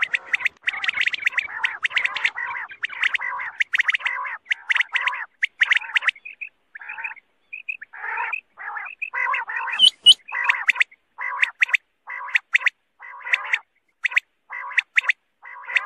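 Quail calling, a recording played as a hunting lure: quick series of short, chirpy notes in bursts. The calling is thinner about six to eight seconds in, then comes back in evenly spaced bursts.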